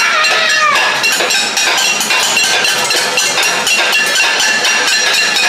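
Metal cooking pots being struck over and over in a cacerolazo, the pot-banging protest: fast, irregular metallic clanging with a ringing tone after the blows.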